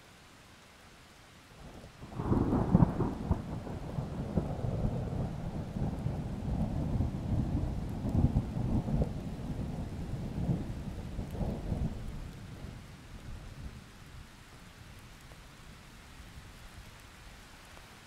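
A peal of thunder about two seconds in: a sharp loud crack that rolls on as a long rumble and dies away over about ten seconds. Under it runs a faint steady hiss of rain.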